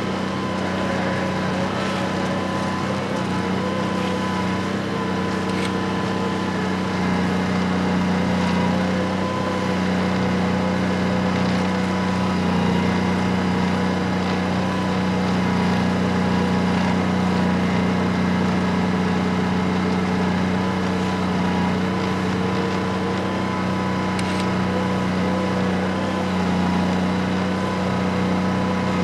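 Snowmobile trail groomer's engine running steadily under load, a constant low hum that swells slightly about seven seconds in.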